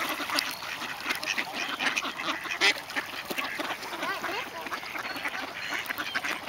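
A large flock of mallard ducks quacking, many short calls overlapping without a break.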